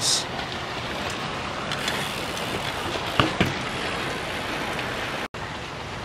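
Steady noise of road traffic passing in the distance, with a few faint clicks about three seconds in. The sound cuts out for an instant near the end.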